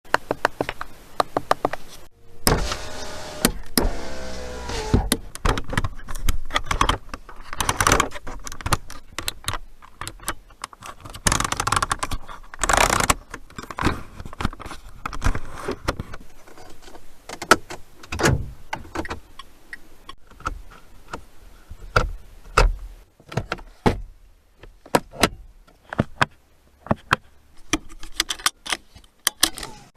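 Dacia car's interior and fittings being worked: a string of sharp clicks, knocks and light rattles. An electric motor whine, typical of a power window, runs from about two and a half to five seconds in.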